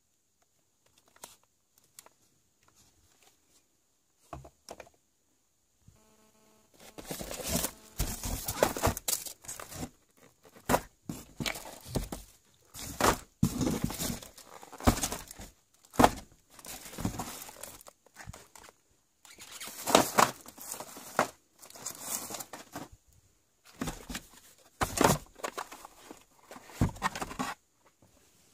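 Cardboard boxes of fireworks being handled and shuffled in a carton, with plastic wrapping crinkling. A few scattered small clicks at first, then from about a quarter of the way in, loud, irregular rustling and scraping.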